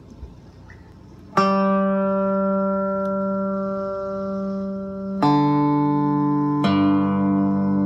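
Electric cigar box guitar strummed three times, each chord left to ring on: first about a second and a half in, then twice more near the end.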